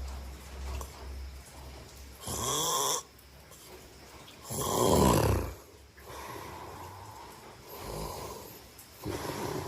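A person snoring in sleep: a string of snores of uneven loudness, the loudest a coarse snore about five seconds in, lasting about a second.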